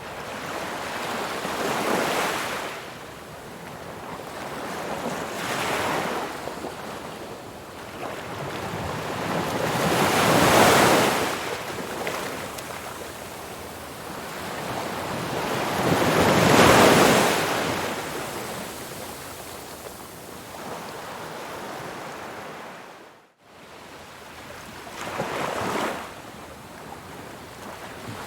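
Ocean waves breaking and washing in, rising and falling in slow swells every few seconds, with a brief break in the sound about four-fifths of the way through.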